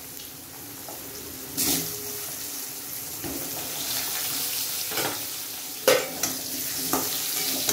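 Potato wedges sizzling in hot mustard oil in a metal kadai, a steady hiss. A few sharp knocks and scrapes against the pan come as more wedges go in and a spatula stirs them, the loudest about six seconds in.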